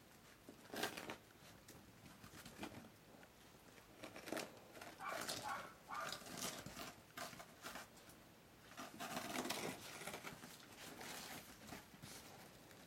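Dachshund puppies scrabbling on a wooden deck and chewing at broom and snow-brush bristles: irregular scratching, rustling and paw patter in short bursts, busiest in the middle.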